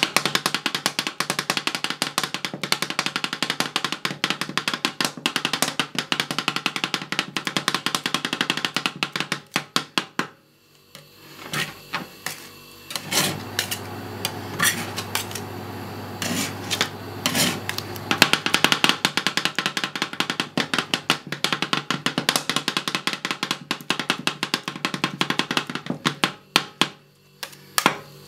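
Two metal spatulas rapidly chopping and tapping on the cold steel plate of a rolled ice cream pan, working a soft curd mixture: a dense run of sharp metal taps that stops briefly in the middle and thins near the end.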